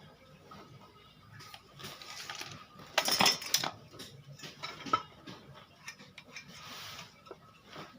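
Workshop handling noises: knocks, clatter and short scrapes of tools and wood being set down and moved, with a loud clatter about three seconds in and a sharp knock near five seconds.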